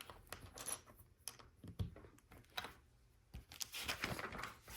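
Plastic LEGO pieces being handled and pressed together: scattered light clicks, with busier handling noise near the end.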